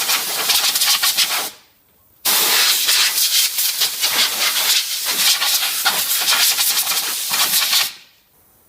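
Compressed air blowing brake dust off the rear brake caliper and pads, hissing in two blasts: a short one, then a longer one of about six seconds.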